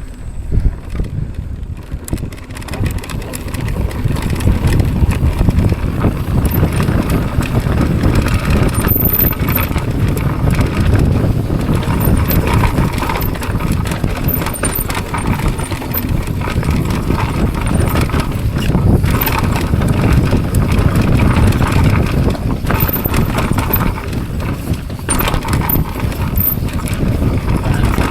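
Mountain bike riding fast down a rough, bumpy trail: continuous tyre rumble over dirt and rocks, with the bike rattling and clattering over the bumps.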